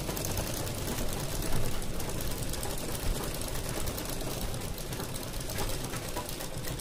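Usha sewing machine running steadily, stitching through a band of elastic.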